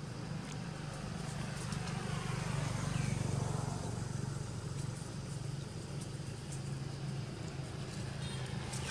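Road traffic: a vehicle passes, swelling to its loudest about three seconds in and fading again over a steady low hum. A single short high chirp is heard just as the vehicle passes.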